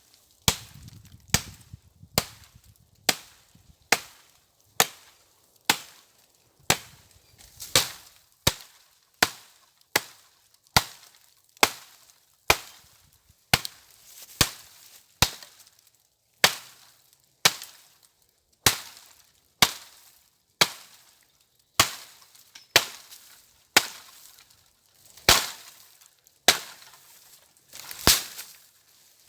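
Wood being chopped with steady, sharp blows, about one a second, as firewood is cut.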